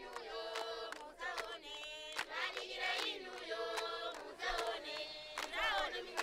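A group of voices singing together in chorus over a steady percussive beat about twice a second.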